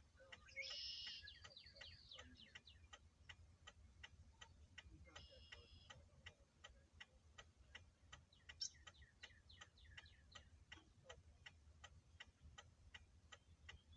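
Faint, steady ticking about three times a second, the clicking of a stopped car's hazard-light flasher. Two short high chirps come about a second in and again about five seconds in.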